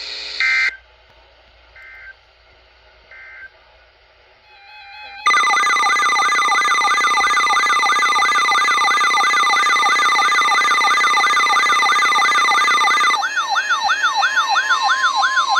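Weather radio emergency alert tones: a short electronic data burst, two faint blips, then about five seconds in a loud electronic alarm. The alarm is a steady high tone under a warbling siren-like sweep repeating about two and a half times a second, changing to a choppier pattern near the end and finishing on a steady lower tone. It signals an incoming tornado warning.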